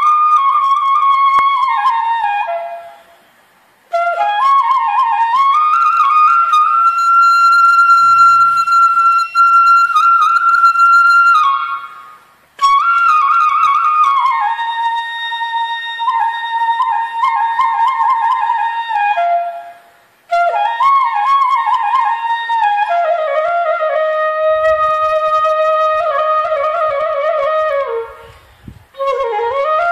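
Background music: a slow solo melody on a wind instrument, played in long phrases with held, ornamented notes and short pauses between them.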